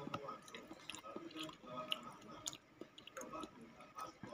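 Close-up chewing of soft, ripe fruit chunks: wet mouth sounds, with a few short sharp clicks from a metal fork against the plastic fruit tubs.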